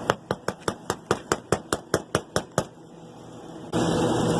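Rapid run of sharp knocks on a hard object, about five a second for nearly three seconds. Near the end comes a sudden loud rush of noise lasting about a second.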